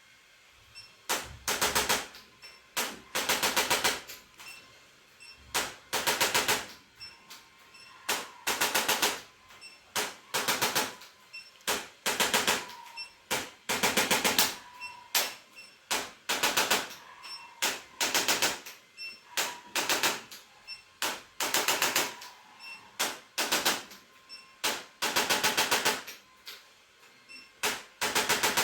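Electric percussion massager working over the patient's body in short bursts of fast rattling pulses, each burst under a second long and one or two every couple of seconds.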